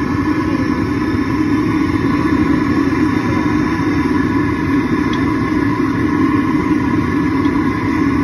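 Steady, loud roar with a constant hum from the gas burner under a pot of oil in which churros are frying.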